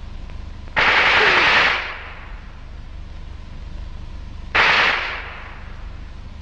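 Two gunshots about four seconds apart. Each is a sudden blast with a tail that fades; the first lasts about a second, the second is shorter.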